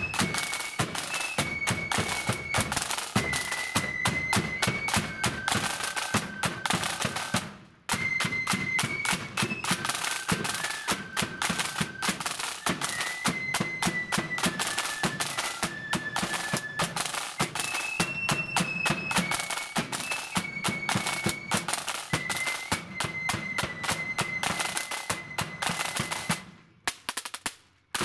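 Marching flute band playing a tune: flutes carry the melody over side drums and a bass drum. The music breaks off briefly about a quarter of the way in, then resumes, and stops shortly before the end.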